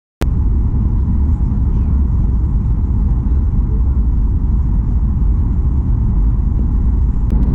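Airliner cabin noise during the descent to land: a steady low rumble of the jet engines and rushing air, heard from a window seat. It cuts in suddenly just after the start.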